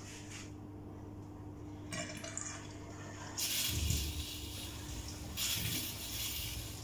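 Water gushing in two spells, the first about a second long and the second about a second and a half, after a brief rattle about two seconds in.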